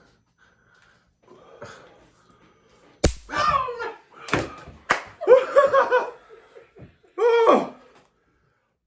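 A single sharp slap-like smack about three seconds in, followed by several loud bursts of a person's voice crying out and laughing.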